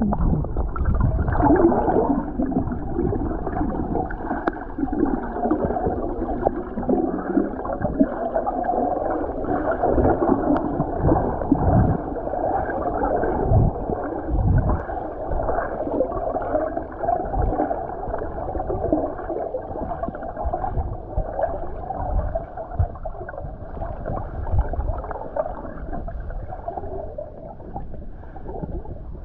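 Muffled churning and gurgling of water heard with the microphone under water, with wavering hollow tones and a few dull low thumps. It fades slowly toward the end.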